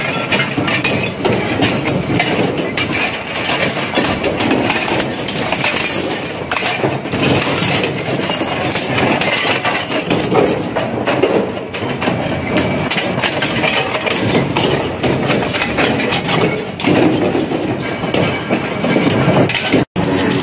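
Twin-shaft metal shredder running under load, its rotating cutter discs grinding and tearing scrap metal with continuous irregular crunching and cracking over the motor's drone. The sound drops out for an instant near the end.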